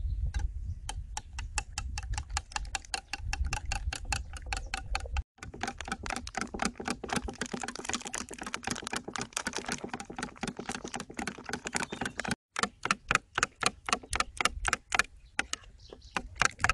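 Metal spoon beating duck eggs in a bowl: a rapid, even clicking of the spoon striking the bowl, about four to five strokes a second, broken off twice briefly.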